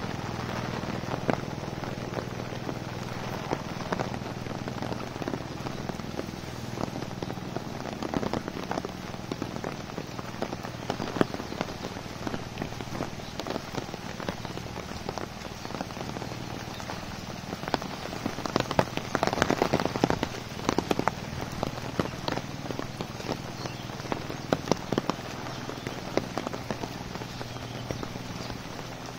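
Steady monsoon rain falling on leaves and a wet brick path, with many sharp drop hits that come thickest about two-thirds of the way through. A faint steady low hum runs underneath.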